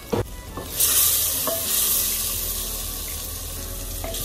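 Spinach and masala sizzling in a clay handi as a wooden spoon stirs it, the hissing starting abruptly about a second in and holding steady. A short knock comes just before.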